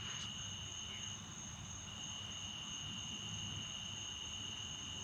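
Night insects trilling steadily, two unbroken high pitches held without pause.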